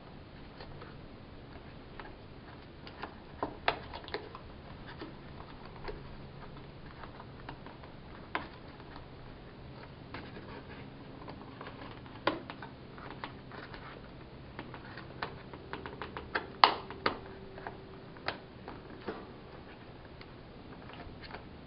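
Irregular small clicks and taps of fingers working thermostat wires into the push-in wire terminals of a Nest thermostat base plate. The loudest click comes about three quarters of the way through.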